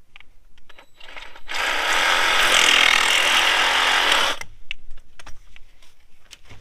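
Power tool cutting through a length of pipe for about three seconds, starting about a second and a half in and stopping sharply, with clicks and knocks of handling around it.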